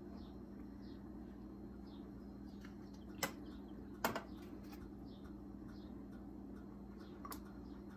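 A bulb baster drawing up and squirting pan juices in a metal roasting pan: faint squelches and three soft clicks of its tip against the pan, about three, four and seven seconds in, over a steady low hum.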